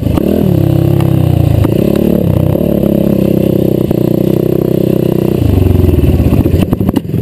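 Race quad's engine revving up and down as it is ridden on a dirt motocross track, heard from on board. About five seconds in the revs drop to a lower, steadier pitch as the rider slows, with a few knocks near the end.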